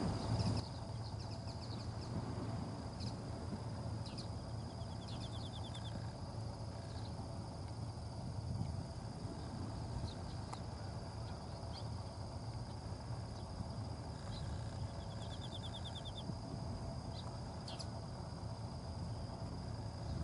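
Insects singing steadily in the grass, a constant high-pitched tone, with two short rapid trills and a few brief bird chirps over a low steady rumble.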